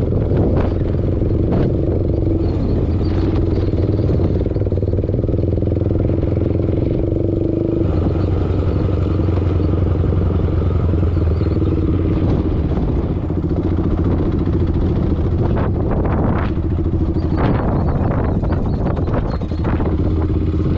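ATV engine running steadily, its note changing about eight seconds in. Several short rattles or knocks come near the end.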